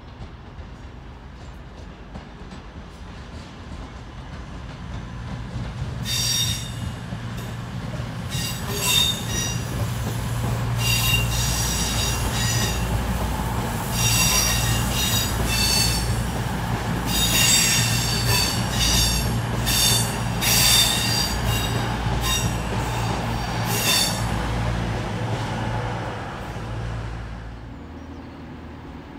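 CrossCountry Voyager diesel multiple unit passing on curved track, its underfloor diesel engines giving a steady low hum while the wheel flanges squeal against the rails again and again in high-pitched bursts. The squealing starts about six seconds in and stops a few seconds before the train's noise dies away near the end.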